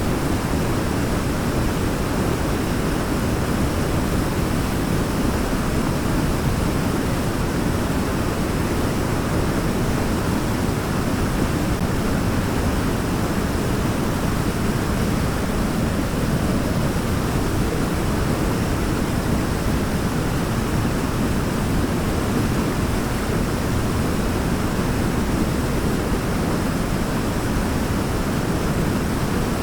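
Waterfall: a steady, unbroken rush of falling water, deep and full rather than hissy.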